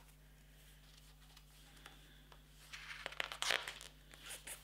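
Paper pages rustling and crackling as a book is leafed through, beginning a little over halfway in after a quiet spell.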